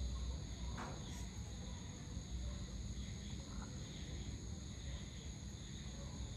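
Evening chorus of insects: a steady high-pitched trilling in several even tones, over a low rumble.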